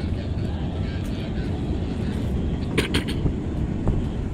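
Wind buffeting the microphone, a steady low rumble, with a few sharp clicks about three seconds in.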